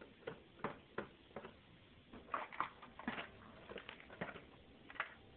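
Irregular small clicks and scrapes from a screwdriver working screws out of a DTV converter box's case, a few a second, with a short run of scraping about halfway through.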